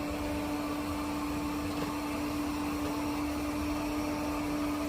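Airzeen robot vacuum running with a steady motor hum and one even tone.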